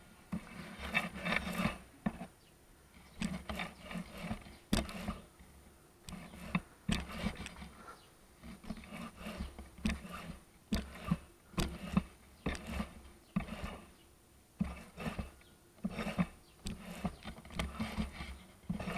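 Paint roller being rolled back and forth in a paint tray to load it with paint: repeated strokes about once a second with short gaps between them, and a few sharp knocks.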